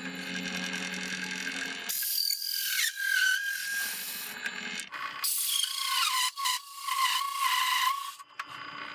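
Bench drill press spinning a hole saw through a white-faced MDF board: motor whine over the grinding of the saw teeth in the wood. The whine changes pitch a few times as the cut loads and eases, settling lower in the second half.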